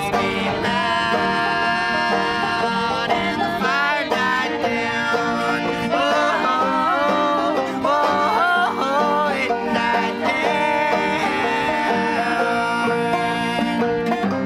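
A string band playing a country/bluegrass-style tune: a bowed fiddle, a picked banjo and an acoustic guitar together.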